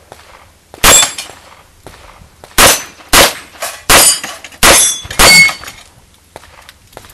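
Six revolver shots from a 4-inch Smith & Wesson 625: one, a pause of nearly two seconds, then five more about two-thirds of a second apart. Several are followed by a brief high ringing.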